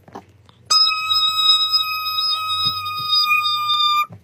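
A steady, high-pitched tone with a ring of overtones, held unchanged for about three seconds before cutting off abruptly.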